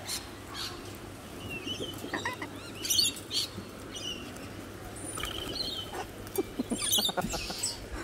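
A flock of sulphur-crested cockatoos calling at close range: short chirps and squawks throughout, with loud harsh screeches about three seconds in and again about seven seconds in, and some wing flapping.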